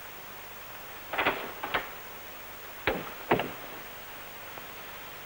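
A door being opened and shut: four short knocks and clacks in two pairs, over a steady soundtrack hiss.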